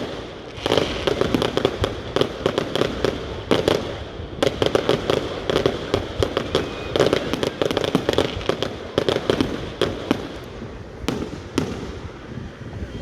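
Fireworks going off in quick succession: a dense run of sharp bangs and crackles that thins out a little near the end.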